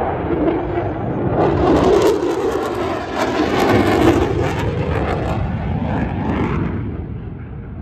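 Aircraft flying past, a loud rush of engine noise that swells about a second in and fades away near the end.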